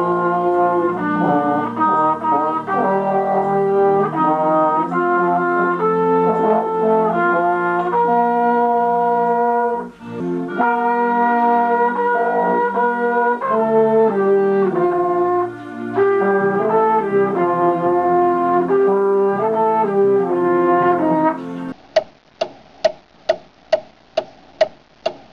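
Brass instruments playing a tune in several parts, with a brief break about ten seconds in. Near the end the music stops and a run of evenly spaced clicks follows, about three a second.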